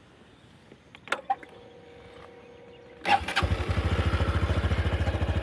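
A vehicle engine is started: a couple of clicks, a faint steady tone, then about three seconds in the engine catches and settles into an even, rapid idle.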